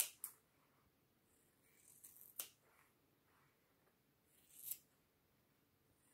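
Scissors snipping through the ends of hair: single crisp cuts about every two seconds, each with a soft high rustle just before it.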